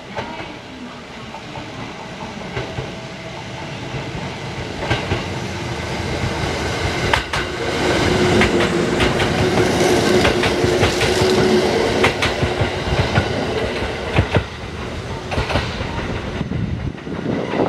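Kintetsu 2013 series 'Tsudoi' three-car electric train passing through the station without stopping. It grows louder as it approaches, goes by with clacks of its wheels over the rail joints and a steady hum, and fades as it leaves near the end.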